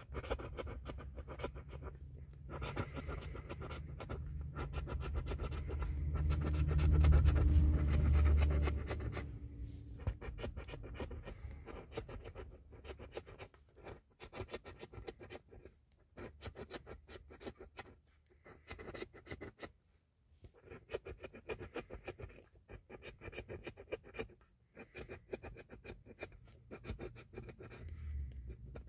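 A coin scratching the coating off a lottery scratch-off ticket in rapid strokes, stopping briefly between spots. A louder low rumble runs from about six to nine seconds in.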